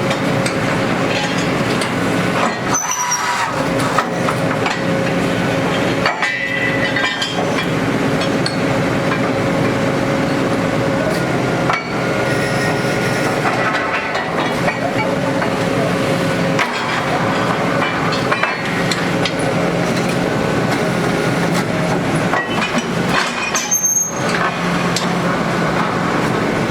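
Borehole drilling rig's engine running steadily, with a few metallic clanks and short squeals as drill pipe and bits are handled.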